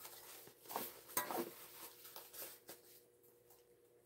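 Rustling and handling of a small fabric tote bag as its lining is tucked in and held with sewing clips, the loudest rustle about a second in.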